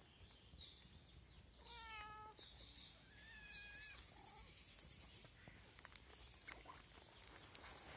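Stray cats meowing faintly: one meow about two seconds in, then a few shorter, higher-pitched meows just after three seconds.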